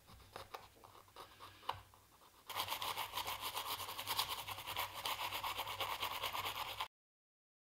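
Light taps, then quick back-and-forth scrubbing on a small corroded phone part to clean off corrosion and dirt. The scrubbing starts about two and a half seconds in and cuts off suddenly about a second before the end.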